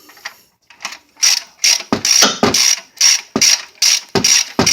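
Ratchet wrench backing out a 13 mm engine mount bolt: quick repeated strokes of pawl clicking, about two to three a second, starting about a second in.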